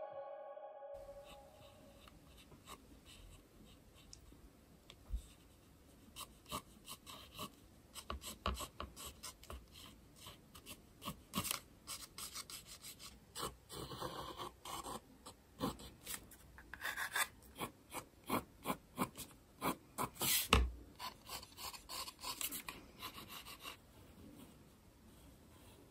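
Pencil sketching on textured sketchbook paper: many short, irregular scratchy strokes, faint, starting about five seconds in and stopping shortly before the end.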